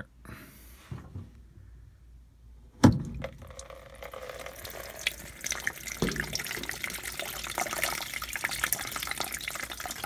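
Water trapped in a Fisher & Paykel top-loader, which its clogged drain pump could not pump out, pouring and splashing from the opened pump housing into a plastic catch basin. A sharp knock comes about three seconds in, and the steady pouring and splashing follows.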